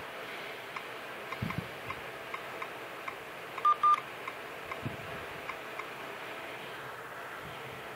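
Tablet on-screen keyboard sounds as a password is typed: a soft tick with each key tap, every half second or so, and two short, louder beeps in quick succession about three and a half seconds in.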